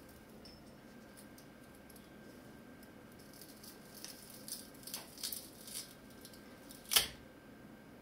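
Small precision screwdriver prying at the glued metal heat spreader of a Kingston HyperX DDR3 memory module. A run of light scratchy clicks from about midway, then one sharp click near the end as the heat spreader half snaps loose.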